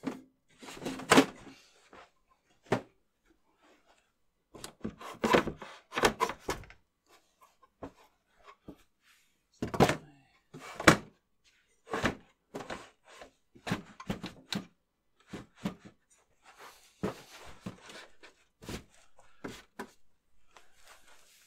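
Irregular knocks, thunks and scrapes of aluminium Power Mac G5 tower cases and a fabric-padded wooden shelf being shifted and set in place, with rustling between the knocks.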